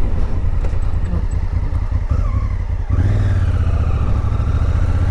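Honda Africa Twin CRF1000L's parallel-twin engine running at low revs as the bike rolls slowly. About three seconds in, the note steps up to a steadier, stronger drone as the bike pulls away through the junction.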